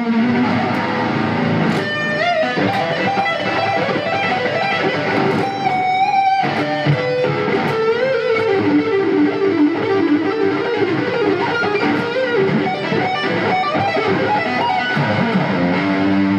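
Electric guitar played lead, from a white V-shaped electric guitar: quick runs of single notes with string bends and held, wavering notes.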